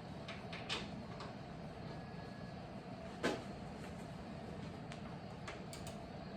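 A few light clicks and clinks of hand tools on the motorcycle's handlebar riser bolts, with one sharp metal knock about three seconds in, over a steady background hum.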